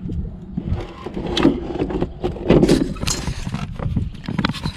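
Irregular clicks, knocks and rattles from hands working the golf cart's pedal linkage, with a few louder bursts of handling noise about halfway through.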